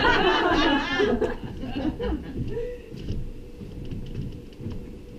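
Audience laughing. The laughter is loudest in the first second, then dies away to scattered chuckles.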